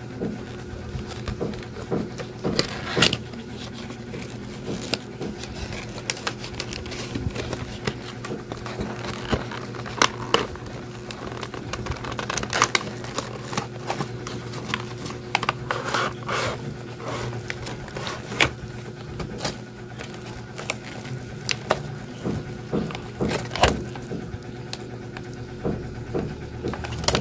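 A cardboard box and a plastic-wrapped digital pocket scale being handled and unpacked: irregular crinkling, rustling and light taps over a steady low hum.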